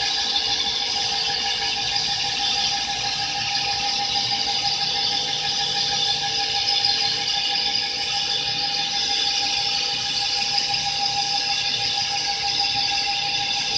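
CNC wheel lathe cutting the face of a spinning alloy wheel. The tool on the metal makes a steady, high-pitched squealing whine that holds several pitches, over the even noise of the machine running.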